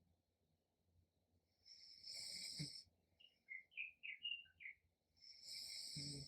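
A sleeping person snoring twice, about three and a half seconds apart. Each snore is a hissing breath ending in a low rattle. Between the two snores comes a short run of about eight high chirps.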